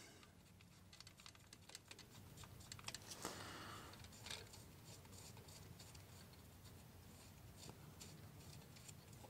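Near silence with faint, scattered light clicks and taps of a small bolt being threaded by hand into the hydraulic release bearing's adapter plate.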